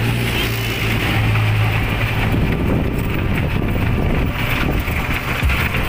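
Motor tricycle's engine running steadily under a constant rush of wind on the microphone, heard from the open passenger cab while it drives along. The low engine hum is strongest in the first couple of seconds, then sinks under the wind.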